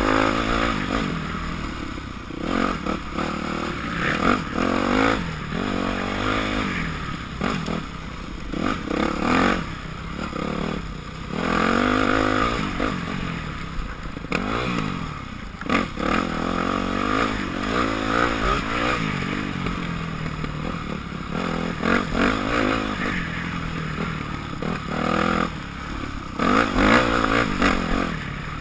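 2006 Yamaha YZ250F four-stroke single-cylinder dirt bike engine under way on a trail, its pitch rising and falling every few seconds with throttle and gear changes. Knocks and rattles from the bike running over rough ground, heard from a helmet-mounted camera.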